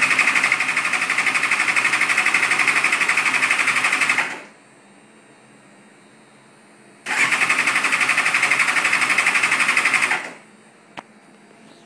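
Suzuki GSX-R 600 inline-four being cranked on its electric starter in two bursts of about four and three seconds, a rapid even pulsing, turning over without ever catching. The owner has found it getting fuel and concludes it is not getting spark. A single faint click follows about a second after the second burst.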